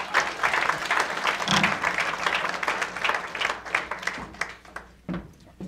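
Audience applause, dense clapping that dies away after about four seconds, followed by a couple of soft thumps near the end.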